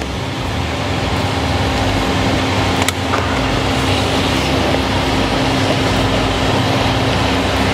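Steady, loud running noise of a machine, with a constant low hum under it, and a single short click about three seconds in.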